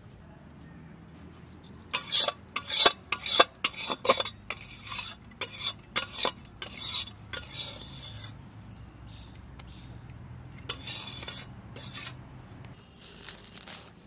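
Spoon scraping and clinking against a pot of fish curry, in a quick run of strokes for about six seconds, then a few softer scrapes.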